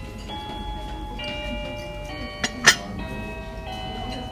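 Background music of layered, bell-like held notes that change about every half second. Two sharp clicks come a little past halfway, the second louder.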